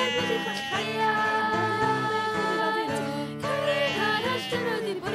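Background music with a singing voice over held instrumental notes.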